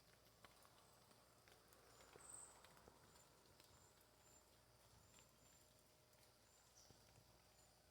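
Near silence: faint outdoor ambience with scattered soft clicks and brief, faint high-pitched chirps.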